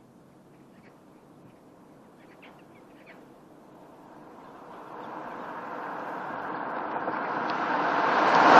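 Pontiac Bonneville's 3800 Series II V6 through its stock exhaust, the engine and exhaust noise swelling steadily over the last four or five seconds to a loud peak at the end.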